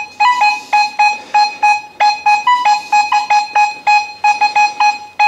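Nokta Makro Legend metal detector (v1.10 software) beeping as its coil is swept back and forth over a lead musket ball. It gives a quick run of short tones, about four a second, mostly at one pitch with a few a little higher. This is a non-iron target response, a signal to dig.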